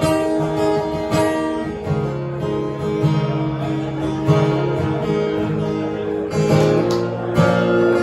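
Acoustic guitar strummed in chords, an instrumental passage with no singing.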